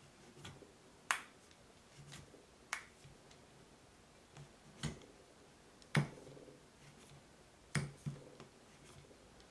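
Cleaning rod clicking and knocking against the chambers of a Ruger Blackhawk revolver's removed steel cylinder as a patch is worked through them. About eight short, sharp clicks at irregular intervals, the loudest about a second in and about six seconds in.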